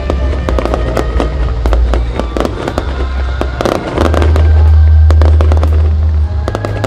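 Aerial fireworks bursting and crackling in quick, irregular succession over music with a deep bass line.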